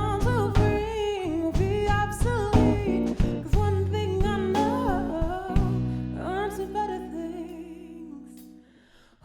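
A woman singing a soulful melody with vibrato over guitar accompaniment; from about two-thirds of the way through, a held chord under the last sung notes fades away to near silence.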